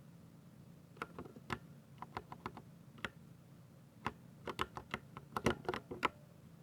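Keystrokes on a Ducky 60% mechanical keyboard with silver switches: irregular typing, single clicks and short quick runs of keys. The keystrokes come thickest in the second half.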